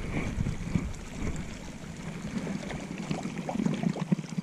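Wind rumbling on a body-worn camera's microphone together with rustling and handling noise as the angler moves on the grassy bank with his rod and landing net. The low rumble drops away after about three seconds, leaving scattered scrapes and small knocks.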